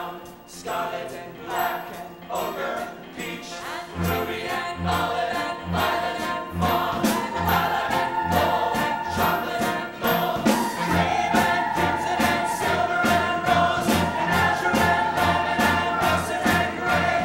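Musical theatre number: a chorus singing over a pit band. A steady bass beat comes in about four seconds in, and the accompaniment fills out past the middle.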